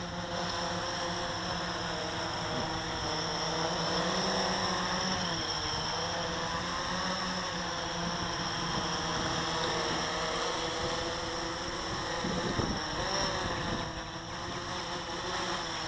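Blade 350 QX quadcopter's four electric motors and propellers whirring steadily as it hovers, the pitch wavering as the motors speed up and slow down.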